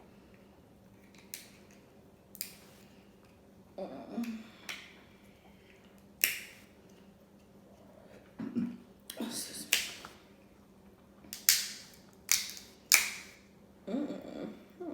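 Close-miked eating sounds from crab and lobster: a series of about eight sharp, wet clicks and cracks, with a few short low hums of enjoyment between them.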